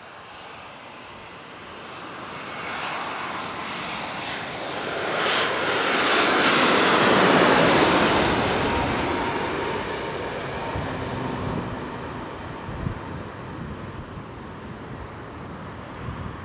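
Jet airliner's engines passing low overhead: the roar builds to a peak about seven seconds in, sweeps in pitch as the plane goes over, then fades away.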